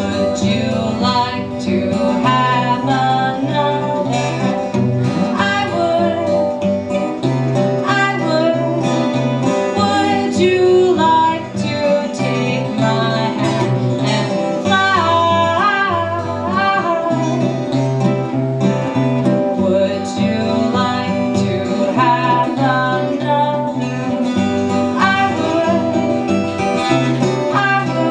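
Live acoustic duo: a woman sings to her strummed acoustic guitar while a second guitar picks along, with steady low bass notes under the melody.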